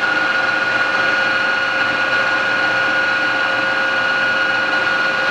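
American Tool Works heavy-duty engine lathe running under power at a steady spindle speed, its chuck turning, with a steady whine of several even tones.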